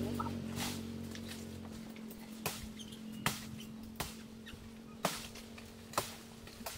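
A knife chopping into the stalk of a nipa palm fruit bunch, about six sharp strokes roughly a second apart.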